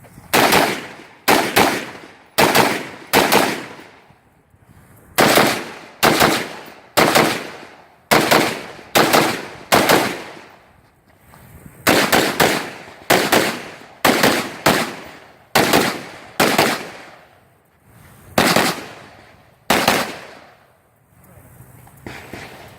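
Rifle shots during a timed close-quarters stage: about twenty sharp reports in quick groups with brief pauses between. Each shot trails off over most of a second.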